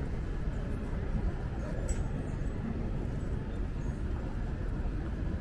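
City street ambience: a steady low rumble of traffic and passers-by, with a brief sharp click about two seconds in.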